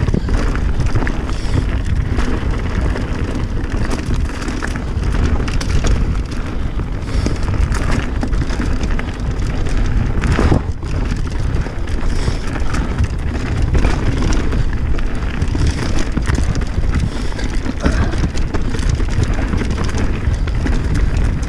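Pivot Firebird mountain bike descending a dirt singletrack at speed: heavy wind buffeting on the camera microphone, over a constant clatter of tyres and bike on the rough trail.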